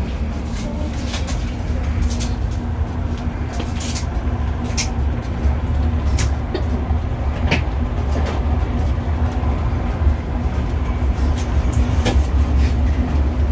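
Wind buffeting the microphone: a steady low rumble, with scattered sharp ticks throughout.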